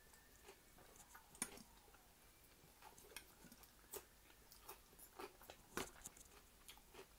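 Faint chewing and eating sounds of seafood paella, with scattered soft clicks.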